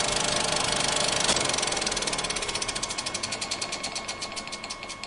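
Film projector after the film runs out: the loose tail of film flapping against the spinning reel, a rapid even clicking that slows steadily and fades.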